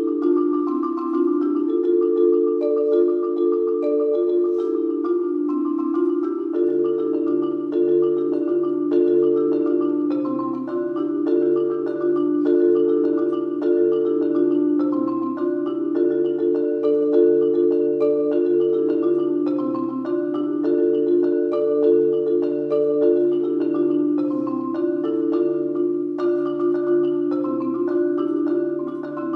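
Solo marimba played with mallets: a continuous stream of quick mid-register notes, joined by a lower bass line about six and a half seconds in.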